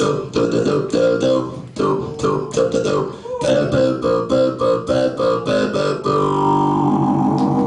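Talkbox played live through a keyboard synthesizer: synth notes shaped into vowel-like, voice-like sounds by the player's mouth, changing every fraction of a second. A single note is held and slides slightly near the end.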